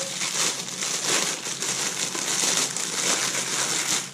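Packaging crinkling and rustling continuously as it is handled and opened to get at a resistance band.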